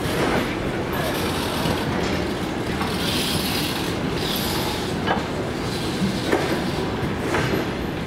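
Passenger railway coaches rolling slowly along the platform, with a steady low rumble and a wheel knock over the rail joints every second or two. Two short high-pitched wheel squeals come in the middle.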